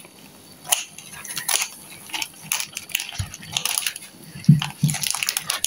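Kitchen shears snipping through the crisp crackling skin of a roast suckling pig: an irregular run of sharp crunches and clicks.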